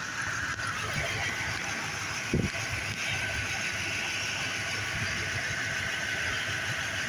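Car engine idling steadily, with a steady whirring hiss over it and a single short knock about two and a half seconds in.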